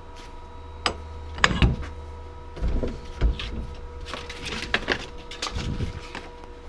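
Scattered knocks and clicks of hands working a KMG belt grinder while an abrasive belt is changed, over a faint steady hum.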